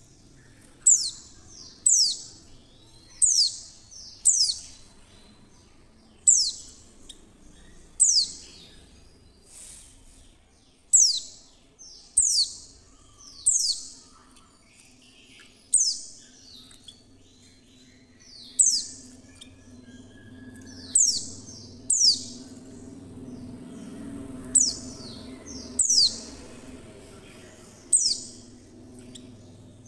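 Female white-eye (pleci) calling: short, sharp, high-pitched notes, each falling steeply in pitch, repeated about once a second and sometimes in quick pairs. A faint steady low hum runs underneath, a little louder in the middle.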